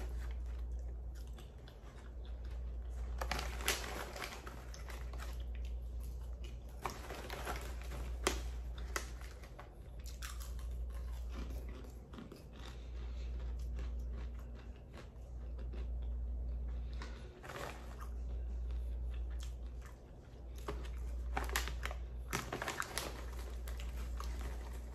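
A person chewing a mouthful of kettle corn popcorn, with soft crunches every second or few seconds.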